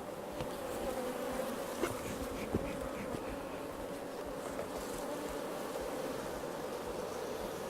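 Honey bees buzzing steadily in a swarming hum over an opened hive box, with a couple of light knocks about two seconds in.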